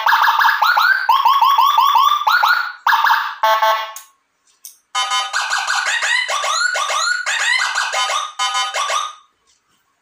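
Custom 60-watt Whelen-style dual-tone electronic siren module sounding through small horn speakers in rapid repeating upward sweeps, about four or five a second. It plays in two bursts, cutting off about four seconds in and starting again a second later with a denser, layered pattern, as the channels are tested one at a time.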